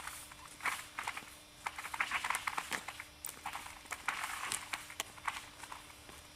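Footsteps crunching on frozen creek ice and snow: irregular clusters of crunches and sharp crackles.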